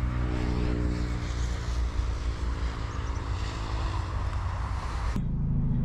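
Chevrolet Spark GT's 1.2-litre four-cylinder engine idling steadily, with wind hiss on the microphone. About five seconds in, the hiss cuts off suddenly and a fuller low hum takes over.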